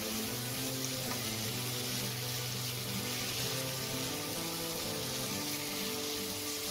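Diced meat and tomato paste sizzling steadily in a nonstick pot as it is stirred, with soft background music.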